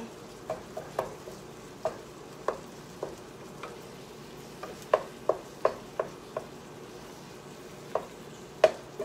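Ground beef browning in a skillet being stirred and broken up with a utensil: a low steady sizzle under irregular sharp knocks of the utensil against the pan, several in quick succession about five seconds in and the loudest near the end.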